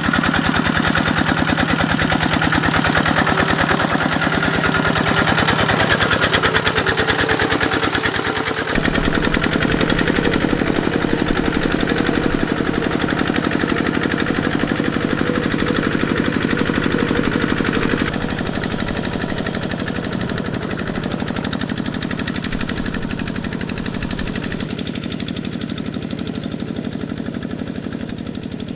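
Kubota two-wheel walking tractor's single-cylinder diesel engine running under load, chugging at a fast, even beat while pulling a plough through wet soil. The engine note shifts about nine seconds in, and the level drops a little around eighteen seconds.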